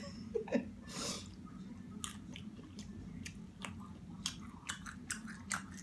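A person chewing and eating seafood boil close to the microphone, with scattered sharp wet mouth clicks and smacks and a brief rush of noise about a second in.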